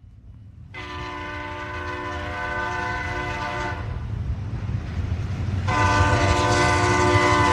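Train air horn sounding two long chord blasts, each about three seconds, over the low rumble of a train that grows louder.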